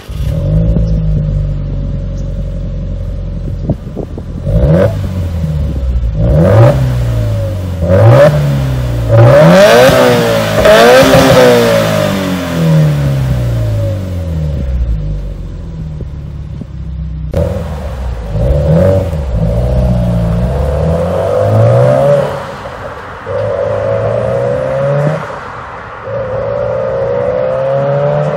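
Subaru WRX STI's turbocharged EJ20 flat-four, breathing through an HKS Super Turbo Muffler Ti full-titanium exhaust, catches at start-up and settles into a fast idle. It is then revved in repeated sharp blips that rise and fall in pitch. Near the end the car accelerates away hard in a few long pulls.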